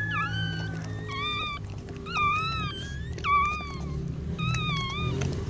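Newborn puppy squealing in short, high-pitched cries, about six of them, each rising and then dropping in pitch.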